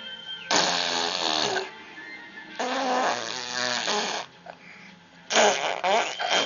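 A person making funny mouth noises: three breathy, rough bursts of a second or so each, with short pauses between them.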